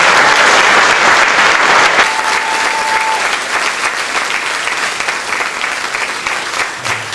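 Audience applauding, loudest at first and slowly easing off, with a short held note about two seconds in.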